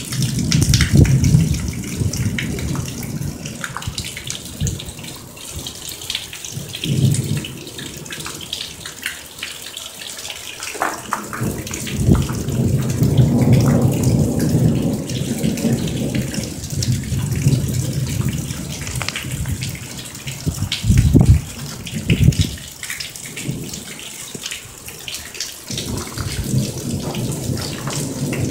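Heavy monsoon downpour: rain hissing and water streaming off a roof edge. Deep rumbles swell and fade several times over it.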